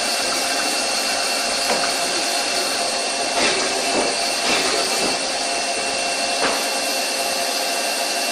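Doosan CNC lathe running with its spindle turning: a steady mechanical whir with a constant high whine, and a few faint clicks a few seconds in.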